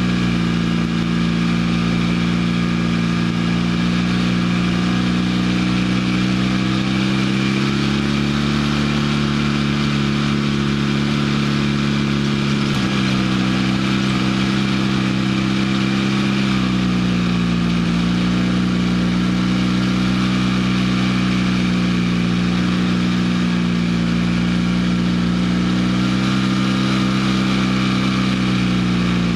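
Off-road vehicle's engine running steadily while driving over sand. Its pitch climbs and eases off gently, with a sudden drop about a third of the way through, over a steady hiss.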